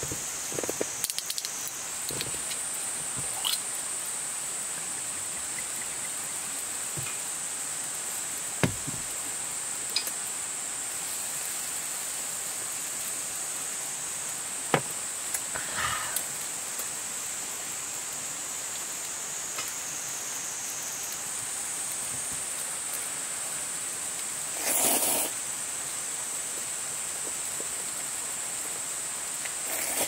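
Steady high-pitched insect chorus in the evening woods. A few light clicks and short rustles of tableware and chopsticks come over it, the longest rustle near the end.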